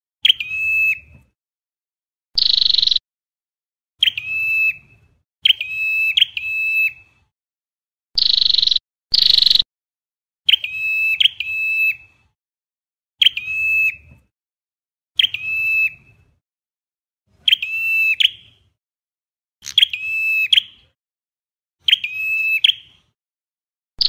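Ashy tailorbird calling over and over: short sharp notes, often in quick pairs, each settling into a brief steady whistle, repeated every second or two, with a few longer, higher notes mixed in.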